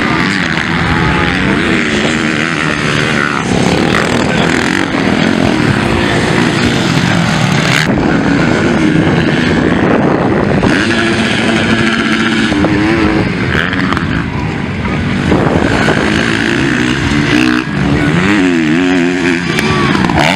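Motocross bike engines racing around a dirt track, revving up and falling off again and again as riders accelerate, shift and clear jumps.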